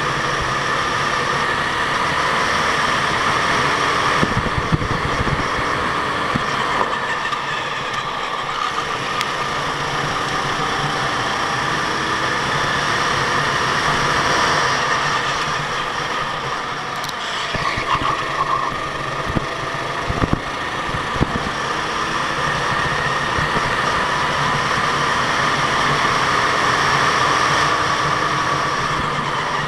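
Go-kart engine running steadily, its note drifting slightly up and down, with a few low thumps.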